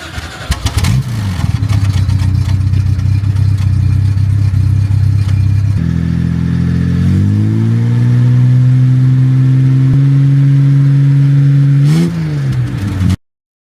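Car engine running at a steady idle, then revved up about seven seconds in and held at higher revs. A quick blip up and down comes near the end, and the sound cuts off suddenly.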